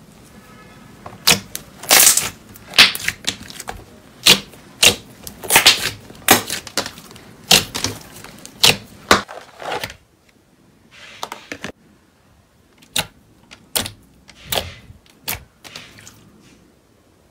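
Slime being pressed and stretched by hand, giving off a quick irregular run of sharp pops and clicks. About ten seconds in the level drops, and a clear slime gives only scattered, softer pops.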